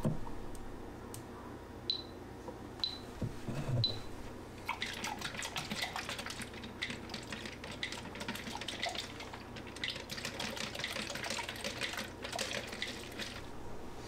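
Liquid sloshing inside a plastic film developing tank as it is turned over and over for agitation during processing, a dense run of splashing from about five seconds in until near the end. Before that, three short high beeps about a second apart.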